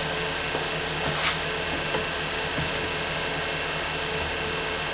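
Small milling machine running steadily, its spindle turning an edge finder against the corner of a brass workpiece: a steady motor hum with a high whine over it. A brief tick about a second in.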